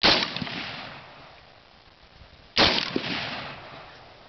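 Two shots from a Springfield M1A National Match, a semi-automatic .308 rifle, about two and a half seconds apart. Each sharp crack is followed by a long echo dying away.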